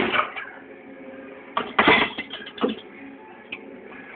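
Clunks and rattles from an old Gorenje dishwasher being handled by hand, several separate knocks with short runs of clatter between them.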